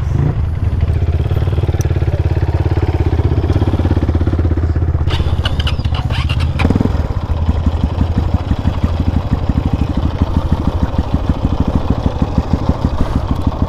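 Motorcycle engine running under way on a rough off-road track. A clattering rattle comes in about five seconds in and lasts under two seconds, then the engine settles into a rapid, evenly pulsing beat.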